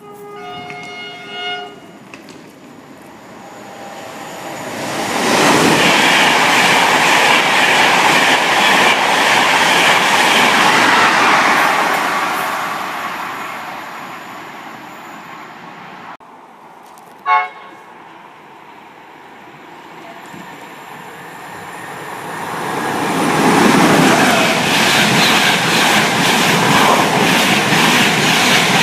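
A train gives a short horn blast, then passes at speed with a rush of wheel and rail noise that swells and fades. A second, very brief horn blast follows, and another train's rush builds to full loudness near the end.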